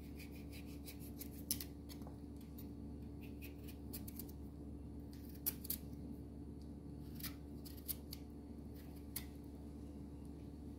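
Kitchen knife paring the skin off a wedge of pumpkin held in the hand: faint, scattered scraping cuts, a few seconds apart, over a steady low hum.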